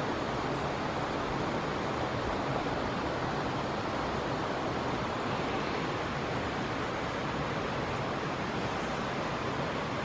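Steady rushing of flowing river water: an even, unbroken noise with no distinct calls or knocks.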